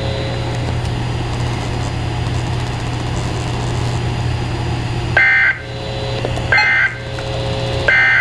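Weather radio receiver hiss with a low hum, then, about five seconds in, three short warbling digital data bursts a little over a second apart: the SAME end-of-message code that closes an NOAA Weather Radio Required Weekly Test.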